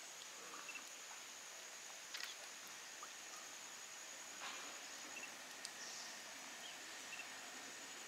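Faint, steady, high-pitched chirring of insects, with a couple of soft ticks about two and four and a half seconds in.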